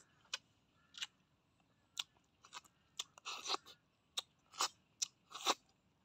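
A person eating cooked snails by hand, sucking the meat out of the shells: about a dozen short, sharp slurps and smacks at irregular intervals, a few drawn out longer, mixed with chewing.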